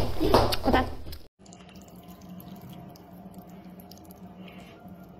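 Close-miked chewing and wet mouth clicks for about a second. Then an abrupt cut to a quieter stretch: a low steady hum with faint scattered clicks and drips, as rice noodles are lifted dripping from a bowl of broth.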